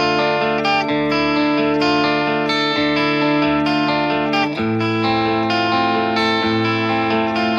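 Instrumental theme music of sustained, layered chords, with the harmony shifting to a lower chord about four and a half seconds in.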